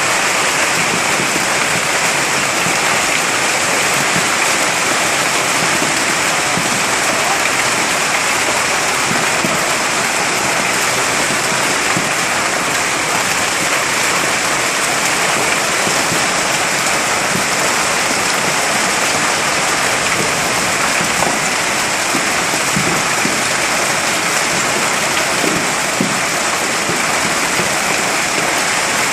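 Heavy hailstorm with rain: a dense, steady roar of hailstones and rain pelting surfaces.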